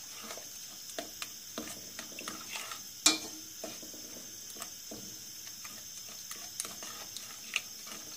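Raspberries, sugar and starch being stirred in a stainless steel pot, making light, irregular clicks and scrapes of the utensil against the pot, with one sharp, louder clink about three seconds in. The stirring is there to dissolve the starch as the raspberry sauce heats.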